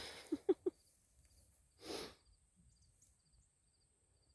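Quiet outdoor ambience with insects chirping in a small, evenly repeating high pattern over a faint steady high hum. A short breathy rush comes about two seconds in, and another with a few brief voice sounds right at the start.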